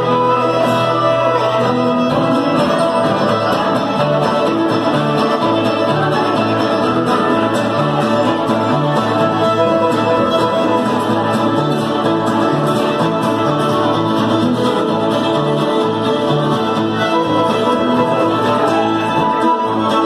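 Live old-time string band playing a fiddle tune: two fiddles carry the melody over strummed guitar and other plucked strings, with a steady, even beat.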